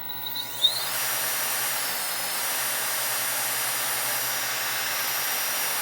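Freshly rewound GARTT ML3508 700KV brushless motor spinning up: a high whine rises in pitch about half a second in, then holds at a steady speed over a rushing hiss. It runs smoothly, a sign the rewind worked.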